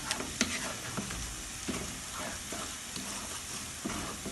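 Wooden spatula stirring a thick onion, garlic, ginger and turmeric masala in a nonstick frying pan, scraping and knocking against the pan every second or so over a steady sizzle. The spice base is being fried down for biryani until its raw smell is gone.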